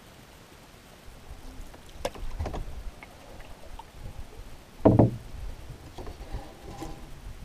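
A canoe being paddled: wooden paddle strokes and knocks of the paddle against the canoe. There is a loud knock about five seconds in as the paddle is laid across the canoe.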